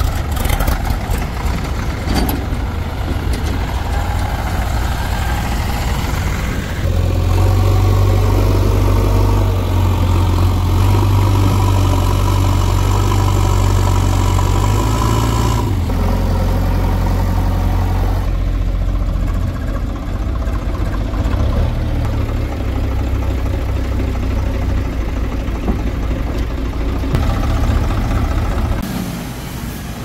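Heavy diesel engine running continuously, its speed and load stepping up about a quarter of the way in, shifting a few times, and easing off near the end.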